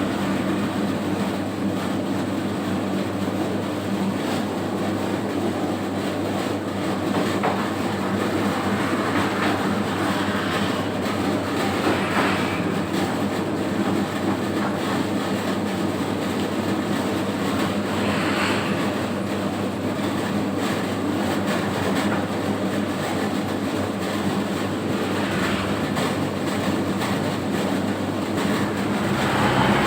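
A home-built 3 kg donut dough mixer running steadily: its motor and drive hum, with a constant mechanical rumble that swells briefly a few times.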